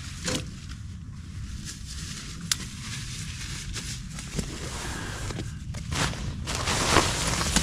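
Rustling of nylon camping gear as a backpack and a stuff sack are handled and set down in a tent, with a few sharp clicks and a louder burst of rustling near the end, over a steady low rumble.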